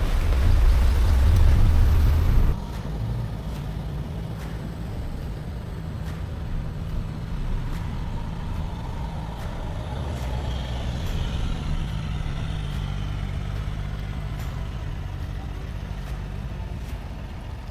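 A loud rushing noise that cuts off abruptly about two and a half seconds in, then a 4WD's engine running steadily.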